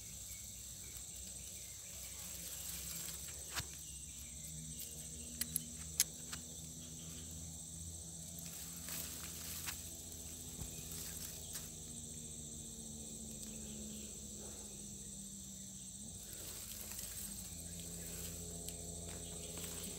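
Insects chirring steadily in a high, even drone, with a low hum underneath and a few soft clicks about four to six seconds in.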